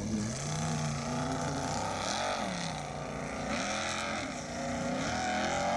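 Formula Offroad buggy's Chevrolet 350 LT1 V8 revving hard as it climbs a steep sand hill, its pitch rising and falling repeatedly.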